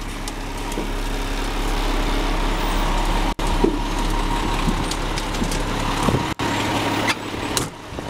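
Concrete mixer truck's diesel engine running steadily with a constant low hum, cutting out briefly twice; the low hum drops away near the end.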